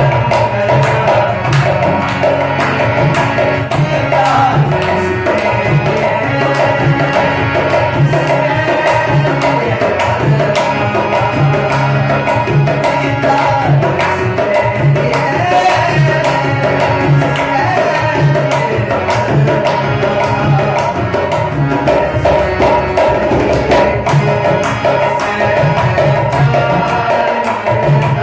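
Dholak playing a fast, steady rhythm under sustained melodic notes: an instrumental passage of a live Hindi film song.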